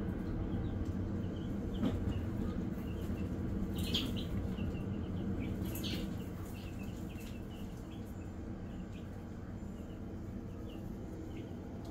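A flock of young Easter Egger chicks peeping, many short high peeps over a steady low hum. The peeping thins out after about six seconds.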